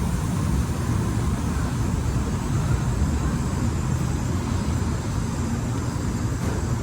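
Steady low rumble of train noise, even throughout with no distinct events.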